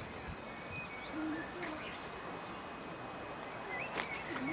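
Countryside ambience: wild birds chirping and singing over a steady background hiss, with a few short low hoot-like notes about a second in and again near the end.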